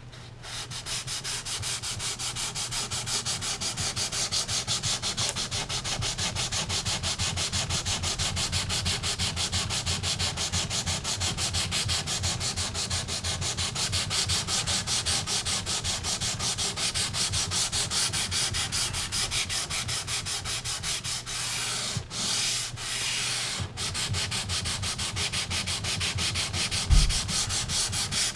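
Sandpaper on a wooden sanding block rubbed in quick, even strokes back and forth along a guitar fingerboard whose frets have been pulled: scuff sanding to take off the burrs left at the fret slots. The strokes pause briefly twice, and a single thump comes near the end.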